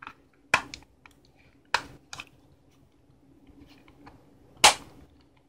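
Computer mouse buttons being pressed, about half a dozen sharp clicks at irregular intervals, the loudest near the end. The buttons' microswitches have been swapped to cure an inconsistent click, and the mouse is being checked to see if it clicks properly.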